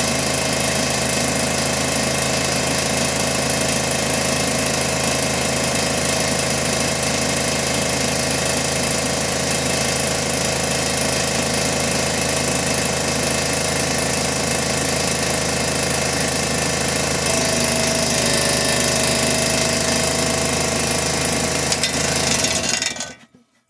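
Piston air compressor running under load with a loud, steady mechanical clatter. A little after three-quarters of the way through its tone changes, and it cuts off suddenly near the end. Right after, the owner says the noises it made sound like it blew a piston.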